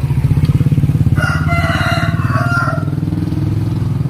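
A rooster crows once, about a second in, for about a second and a half. Under it a small engine runs steadily, with an even low pulsing.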